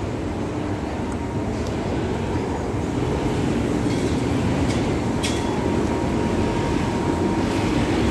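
Steady low rumbling background noise, growing a little louder about three seconds in, with a couple of faint clicks around five seconds in.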